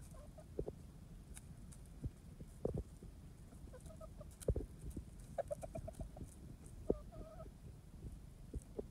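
Hens clucking in short low notes, with a quick run of clucks in the middle, over scattered sharp taps and rustles in dry leaf litter; the taps are the loudest sounds.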